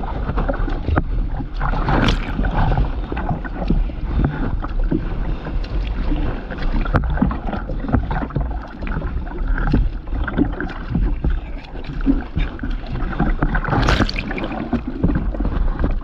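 Seawater splashing and washing over the nose of a stand-up paddleboard as it meets choppy waves, with heavy wind rumble on the camera microphone. Louder washes come about two seconds in and again near the end.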